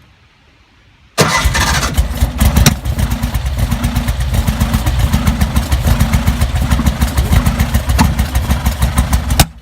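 Porsche 356 Speedster's air-cooled flat-four being cranked over by the starter for about eight seconds with a rhythmic chugging, without settling into a run, then cut off suddenly. The owners suspect no fuel is getting through.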